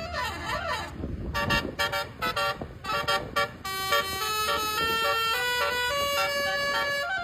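Indonesian bus 'telolet' basuri musical horn playing. It opens with a wavering up-and-down glide, goes into a run of short choppy blasts, and from about halfway through plays a tune of held notes that step in pitch.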